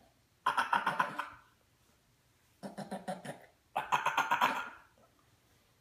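Coughing in hoarse, rasping fits. About half a second in comes a loud hacking burst lasting about a second; near the middle a quieter, lower rasping bout leads straight into a second loud hacking burst of about a second.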